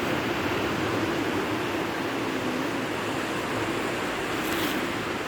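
Sea surf washing on a beach, a steady rush of noise with a low hum wavering through it and a short hiss near the end.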